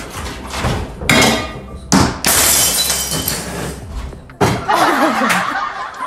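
A glass ornament falls from a cabinet top and shatters on a hard floor: a loud crash about two seconds in, followed by a second or so of glass pieces scattering and tinkling.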